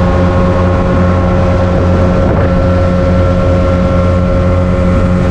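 Motorboat engine running steadily at a constant pitch, loud and unchanging.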